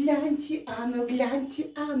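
A woman's voice singing short wordless syllables on held, fairly steady notes.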